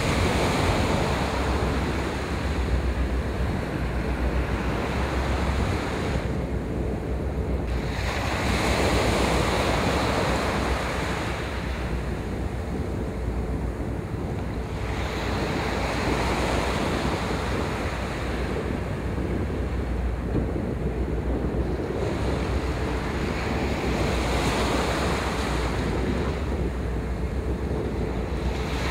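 Wind rumbling on the microphone over waves washing on the shore. The noise swells and eases every few seconds.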